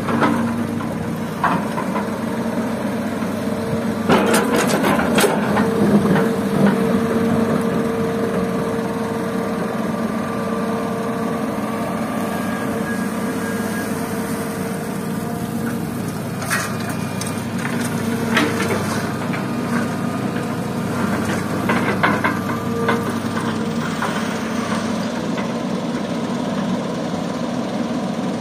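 Hydraulic excavator's diesel engine running steadily with a whine, while the steel bucket digs and scrapes into packed earth and stones, giving scattered clatters of rock and soil.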